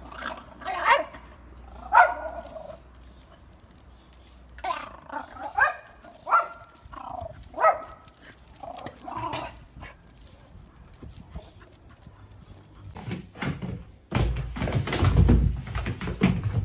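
Dog barks and yips, about a dozen short calls in clusters over the first ten seconds. Near the end, a loud, dense stretch of thumping and rustling noise.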